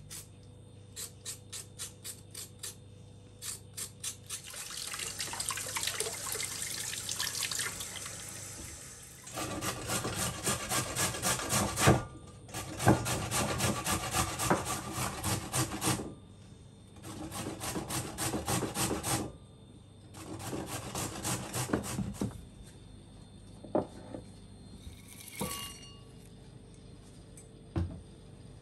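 Carrots grated on a hand grater: quick, rhythmic rasping strokes, several a second, in runs of a few seconds with short pauses between them.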